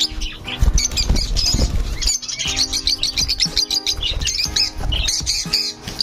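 A flock of peach-faced lovebirds chattering with rapid, high-pitched chirps, over background music. There is a burst of low rumbling noise in the first two seconds.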